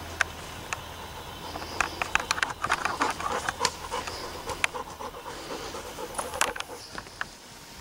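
Young Alaskan Malamute panting close by, with irregular sharp clicks and knocks, thickest in the middle, as she noses and mouths a toy ball.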